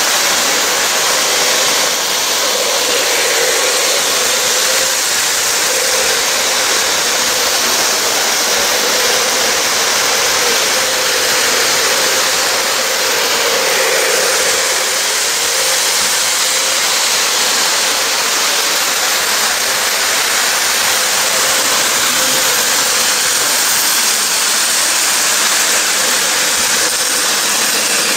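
Electric model train running past close by on its track: a steady motor hum with the rolling rumble of wheels on the rails and a hiss over it.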